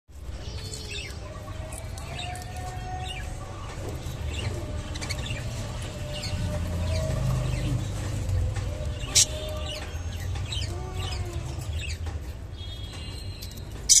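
Budgerigars chirping and chattering in a cage, with a steady low rumble underneath. There are two sharp clicks, one about nine seconds in and one at the very end.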